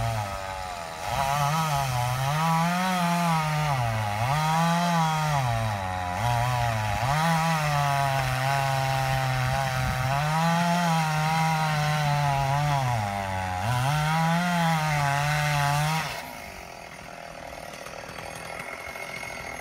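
Chainsaw cutting a tree, its engine pitch dipping and recovering again and again as the chain bites into the wood. It stops about sixteen seconds in, leaving a quieter background.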